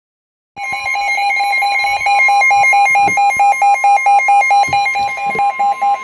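Weather alert radio sounding a warning alarm: a steady alert tone under the radio's own rapid, repeating beeps, starting about half a second in. It signals that a warning is being broadcast, here a severe thunderstorm warning.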